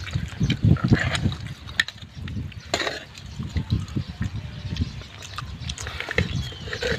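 Wet eating sounds close to the microphone: rice and pork curry mixed and eaten by hand, heard as many short, irregular sounds.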